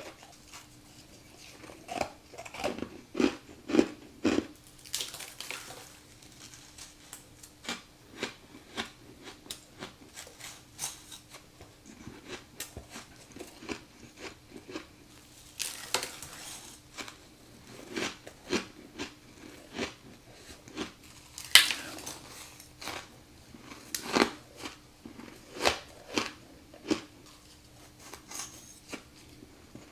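Close-miked crunchy bites and chewing of chunks of humidifier frost from a freezer: sharp, crisp crunches at irregular intervals, with a few louder bites.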